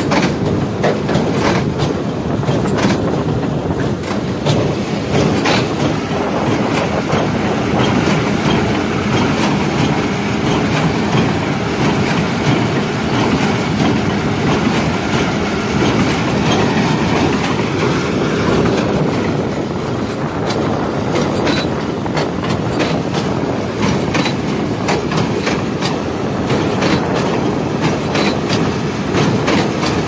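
John Deere 1433 small square baler working at full tilt, pulled by a tractor: a steady loud mechanical clatter with rapid, repeated clacking from the plunger and moving parts as hay is compressed and pushed out along the bale chamber.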